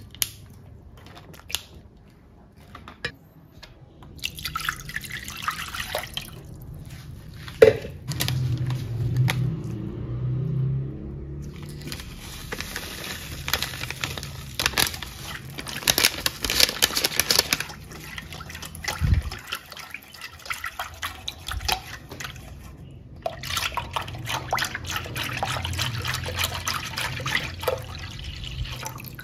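Kitchen preparation sounds. At first, light clicks as small plastic jelly cups are set into a metal bundt pan. Then come stretches of liquid pouring and sloshing in a pot, and a wire whisk stirring through the liquid with quick small ticks near the end.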